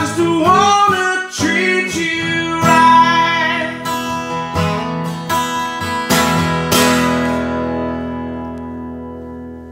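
A man singing over a strummed acoustic guitar with a capo. The voice stops about three seconds in, a few more chords are strummed, and the last chord rings out and slowly fades.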